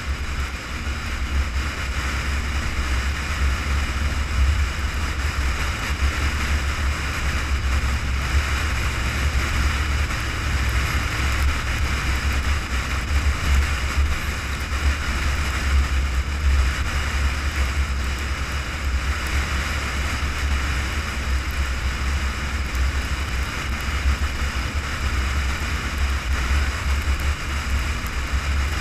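Wind buffeting a hood-mounted action camera at highway speed, a steady low rumble, with road and tyre noise underneath.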